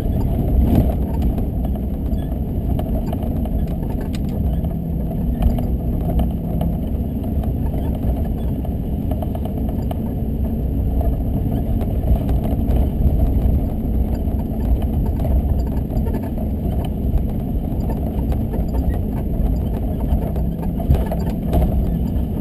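Car driving at a steady pace, its engine and road noise running evenly with a deep rumble and occasional small clicks.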